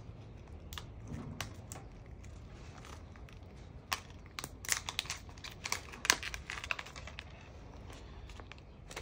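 Crinkling and crackling of a small plastic fingerboard-wheel packet being worked open by hand. It comes in irregular clusters of sharp crackles, busiest from about four to seven seconds in.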